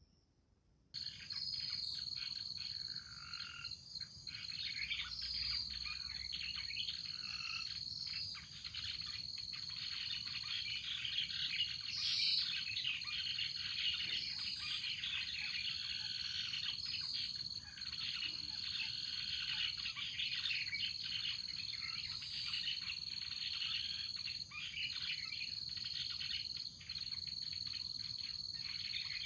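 Many birds chirping and calling at once, with a steady high-pitched insect trill underneath; the sound starts suddenly about a second in.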